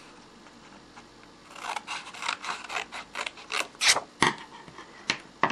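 Scissors cutting through a folded strip of paper along its creases: a run of rough, rasping snips starting about a second and a half in, with a few sharper cuts near the end.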